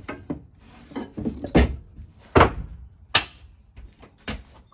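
A handful of sharp knocks and clunks of hard objects being handled and set down, about five in all, the loudest about halfway through.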